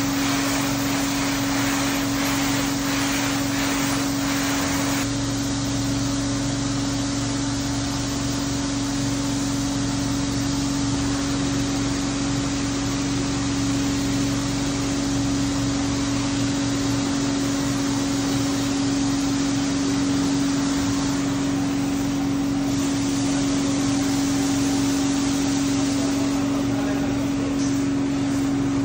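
Water hissing from a hose wand sprayed onto a rug, over a steady motor hum; about five seconds in the spray stops and a rotary floor scrubber runs on steadily, scrubbing shampoo foam into the wet rug.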